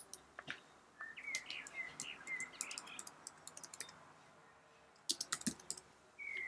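A single mouse click, then computer keyboard typing in two spells: scattered keystrokes from about a second in until about four seconds, and a quick run of keys around five seconds. A small bird chirps faintly in the background during the first spell.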